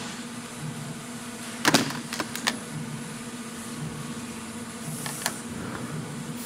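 Small parts clicking and clacking as they are handled and set down on a workbench: a sharp cluster about two seconds in, a few lighter clicks after it, and two more about five seconds in. Under them runs a steady low hum.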